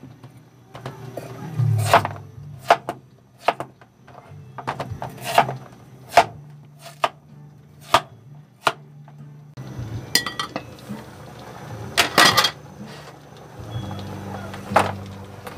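Kitchen knife chopping through a peeled raw vegetable onto a wooden cutting board: sharp, irregular chops about one or two a second, with a louder flurry of cuts about twelve seconds in, over a steady low hum.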